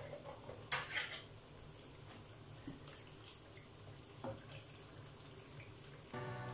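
Faint liquid sounds of cooking in a pot, with a few light clicks about a second in. Background music with steady sustained notes comes in near the end.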